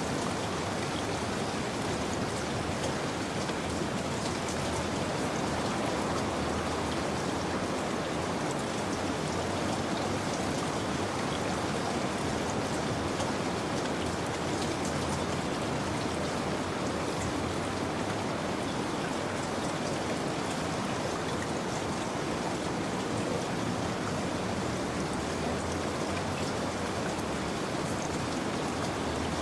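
Steady rain falling, an even hiss of drops pattering on a surface with no break.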